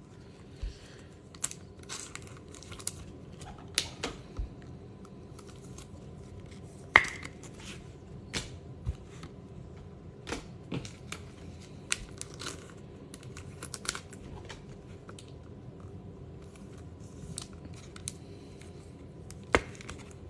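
Trading cards and foil pack wrappers being handled: scattered light clicks, taps and crinkles, with a sharper click about seven seconds in and another near the end.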